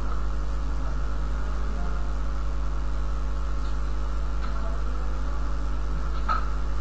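Steady electrical hum and hiss from the recording's microphone chain, with a faint click near the end.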